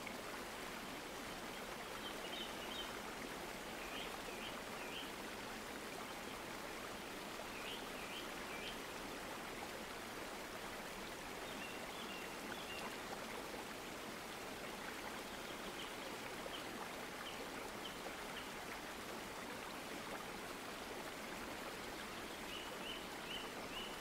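Steady faint hiss of background noise from an open microphone, with a few faint, short high chirps in small groups every few seconds.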